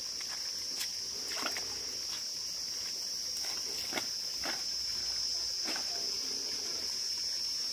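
A steady, high-pitched chorus of insects, with a few short clicks scattered through it.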